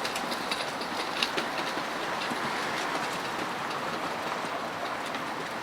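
Tram running on its rails: a steady rumble and hiss of wheels on track, with a quick run of clicks in the first second and a half and scattered clicks after, as the wheels pass over the track.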